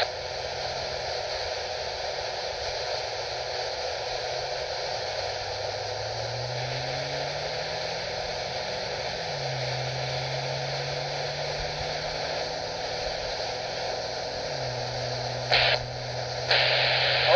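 Radio receiver static: a steady hiss with a faint low whistle that slides up, drops back down, then holds steady. Near the end two short louder bursts of noise break in.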